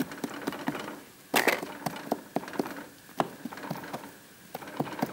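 Knife and fork clicking and knocking on a cutting board as raw chicken drumsticks are cut and pierced: irregular sharp taps, with a louder knock about one and a half seconds in.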